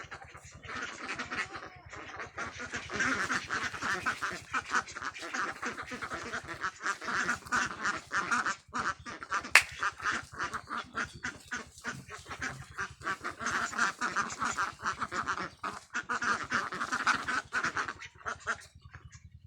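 A flock of Khaki Campbell ducks quacking in a dense, continuous chatter of many overlapping calls. A single sharp click sounds about halfway through.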